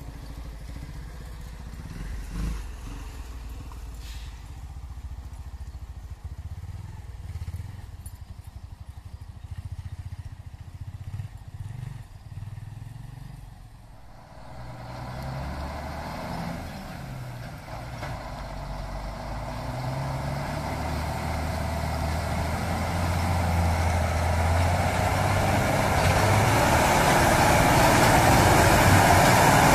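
Heavy loaded cargo truck's diesel engine pulling through deep mud ruts. It is a low rumble at first, then grows steadily louder over the second half as the truck comes closer.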